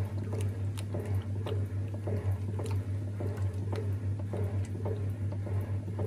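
1950s THOR washing machine agitating a load: clothes and water sloshing with each stroke of the central agitator, over the steady hum of the machine's motor.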